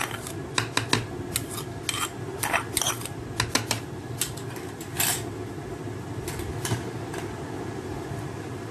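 A steel spoon clinking and tapping against a food processor bowl as ginger-garlic paste is scraped off into it. Quick sharp clicks come over the first five seconds or so, then only a few, over a steady low hum.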